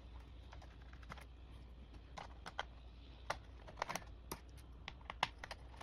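Irregular light clicks and taps of a small screwdriver and fingers on a laptop's plastic bottom case as a screw is taken out.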